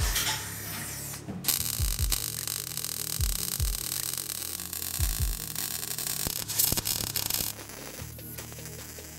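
MIG welder arc sizzling as a steel plate is welded to a trailer chassis: a short burst at the start, then one long bead of about six seconds that stops about a second and a half before the end.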